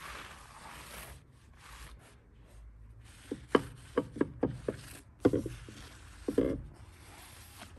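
Cloth rubbing over a surface in a light wipe-down, then a series of light knocks and clatters as household objects are handled and set down, some with a brief ring.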